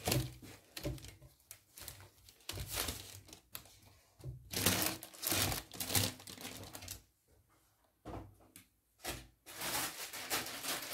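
Baking paper crinkling and rustling in irregular bursts as a baked sponge cake sheet is handled on it, with quiet gaps between the bursts.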